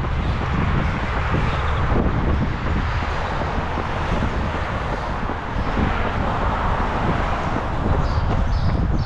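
Wind buffeting the microphone over the steady noise of road traffic going by.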